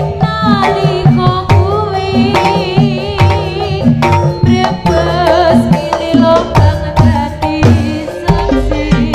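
Jaranan sentherewe music played live: hand drums beating a fast, busy rhythm under a wavering melody with heavy vibrato.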